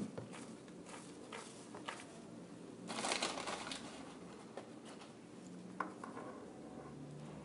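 Faint rustling and small clicks of handling, with a louder, crinkly rustle about three seconds in.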